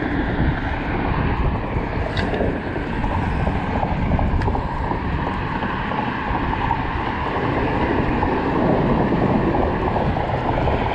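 Steady low rumble of road traffic crossing the bridge alongside, mixed with wind buffeting the microphone.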